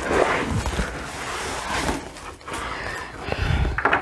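Plastic packaging in a cardboard produce box rustling and crinkling as produce is taken out by hand, with a dull bump near the end.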